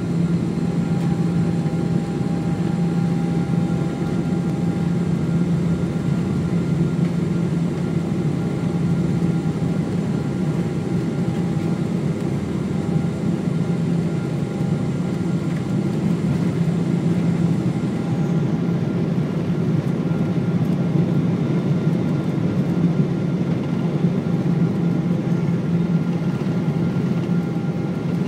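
Jet airliner's engines at takeoff power heard from inside the passenger cabin: a steady, loud low hum with several steady tones over it. A faint high whine stops about eighteen seconds in.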